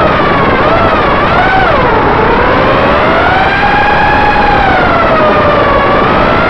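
Brushless motors and propellers of an FPV racing quadcopter (EMAX RS2205 motors) whining under changing throttle, over a rushing hiss. The pitch dips about two seconds in, climbs to a high point around four seconds, then eases and wavers.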